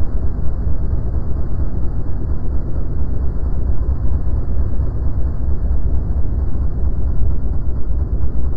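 Steady low rumble of a motorcycle on the move, heard on a rider-worn microphone: wind buffeting over engine noise, muffled, with fast small swings in loudness.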